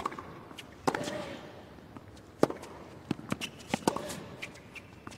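Tennis rally: a ball struck by rackets in sharp single hits, the loudest about a second in and again near the middle, with lighter ball bounces and short squeaks of shoes on the hard court in between.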